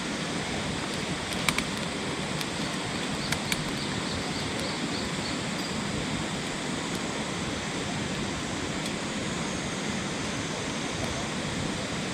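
Steady rushing of a clear mountain river flowing, with a few sharp clicks about one and a half seconds and three and a half seconds in.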